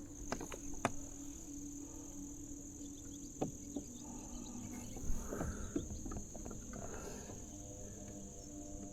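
Insects buzzing steadily and high-pitched, with a faint low steady hum beneath and a few scattered light clicks and knocks.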